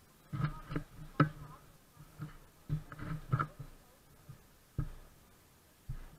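Irregular knocks and thumps: a quick cluster in the first three and a half seconds, then two single knocks near the end.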